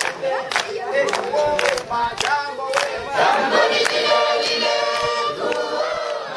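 A large group of students singing together unaccompanied, clapping hands in rhythm about twice a second. About halfway through, the voices hold a long chord that begins to fade near the end.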